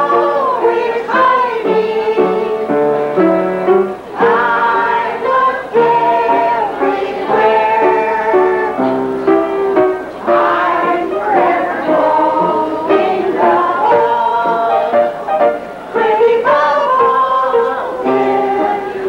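A kitchen band playing a tune, with several melody voices moving together over an accompaniment.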